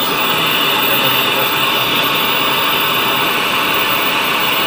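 Onida CRT television's loudspeaker giving out a steady, loud hiss of static, the sound of a set that is switched on but has no signal tuned in. It starts suddenly and holds at an even level.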